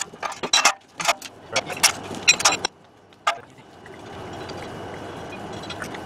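Quick metal clicks and clinks of lug nuts being put onto the wheel studs by hand as a steel wheel goes back on its hub, in the first two and a half seconds with one more about three seconds in. A steady low background noise follows.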